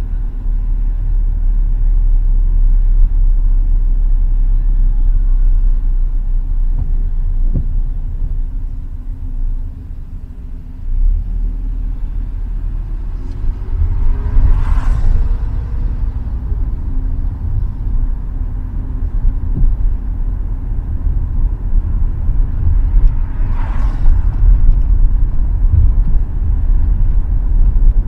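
A car driving on city streets, heard from inside: a steady low road and engine rumble. It eases off briefly about a third of the way in, then a rising engine tone comes as the car pulls away. Two passing vehicles swish by, about halfway through and again near the end.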